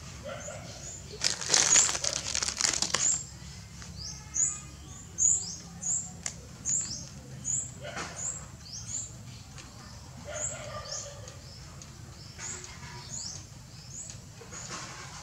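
Small birds chirping in short, high, rising notes, repeated every half second to a second. A loud rustling burst lasting about two seconds comes about a second in.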